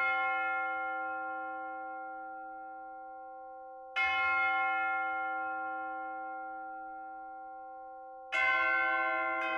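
Bell-like struck notes in background music: three strikes about four seconds apart, each ringing on and slowly fading. A new, lower note comes in right at the end.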